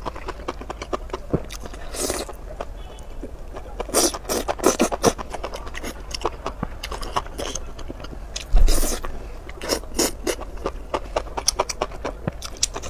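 Mouth slurping and chewing soft strands of chili-coated enoki mushrooms, a series of wet sucking and chewing bursts with the loudest a little past halfway.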